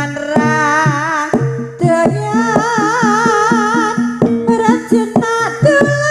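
Javanese jaranan ensemble music playing live: regular drum strokes and low repeated tones keep a steady beat under a long, wavering held melody line.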